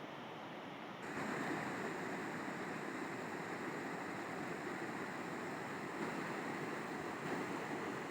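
River water rushing steadily. About a second in it turns louder and brighter, then holds steady.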